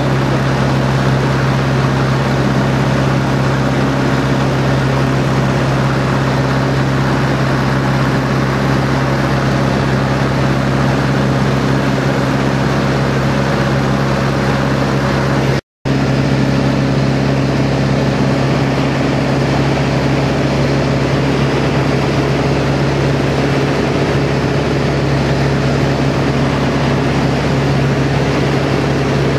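de Havilland Chipmunk's four-cylinder inverted Gipsy Major engine and propeller running at a steady cruise, heard from inside the cockpit as a constant drone with a low hum and rushing air noise. The sound drops out for an instant about halfway through.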